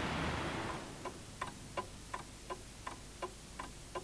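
Street traffic noise fading out over the first second, then a clock ticking steadily, about three ticks a second.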